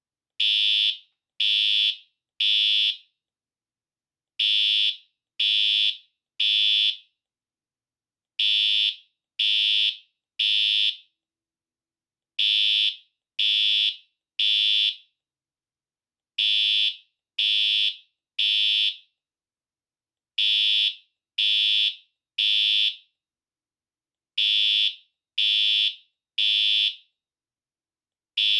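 Siemens U-MHU-MCS fire alarm horn sounding in the temporal-three evacuation pattern: three loud, high-pitched half-second blasts, then a pause, repeating about every four seconds.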